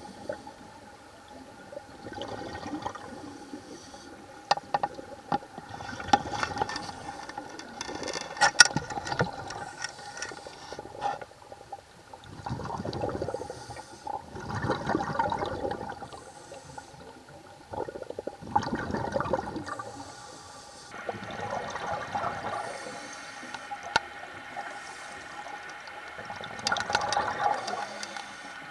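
Scuba diver breathing through a regulator underwater: bursts of exhaled bubbles surge and fade every few seconds, with scattered clicks, over a faint steady tone.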